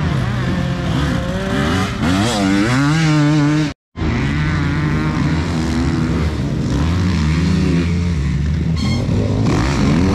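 Enduro dirt bike engines revving, the pitch rising and falling again and again as the bikes ride the dirt track. The sound drops out briefly just under four seconds in.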